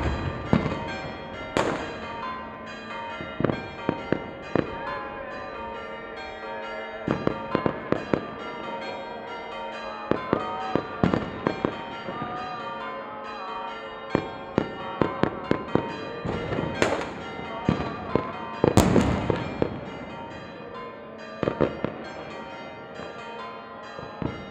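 Fireworks and firecrackers going off in irregular clusters of sharp bangs, the heaviest burst about three-quarters of the way through, over church bells ringing continuously.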